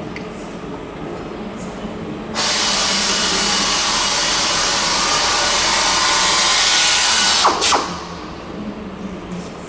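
A power drill running steadily for about five seconds, starting about two seconds in, and stopping with two short bursts. A low steady hum lies underneath throughout.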